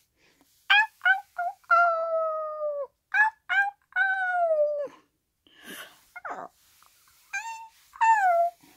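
A child's voice imitating a dog: clusters of short high yelps alternating with longer whines that slide down in pitch.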